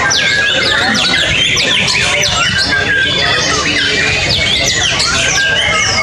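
White-rumped shamas (murai batu) singing: a dense, unbroken run of fast, sharp whistles sweeping up and down, the notes overlapping one another.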